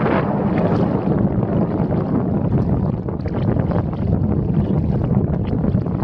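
Steady wind rumble on the microphone over river water rushing and splashing around a kayak.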